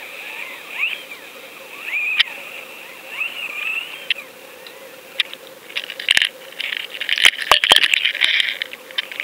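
Underwater sound picked up by a fishing camera on a line: a rising-and-falling chirp repeating about once a second, over a faint steady hum. In the second half the camera is jerked around, with a burst of knocks and rushing noise.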